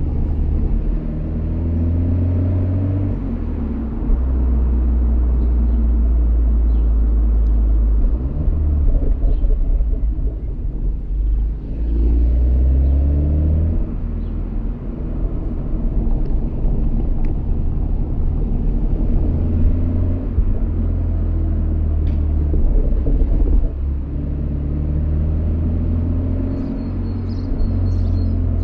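BMW M340i's 3.0-litre turbocharged inline-six heard right at the exhaust in Sport+ mode, with a deep low drone. Several times the pitch rises as the car pulls, then steps down as the automatic shifts up.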